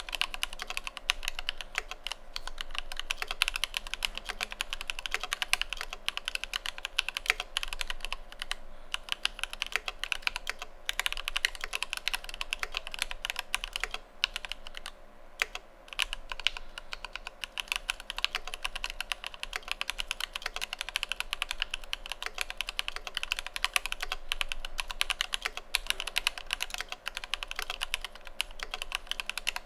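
Fast, continuous typing on an Idobao ID80 mechanical keyboard with lubed Alpaca V2 linear switches and PBT keycaps, the keystrokes coming in a dense stream with a brief pause about halfway through.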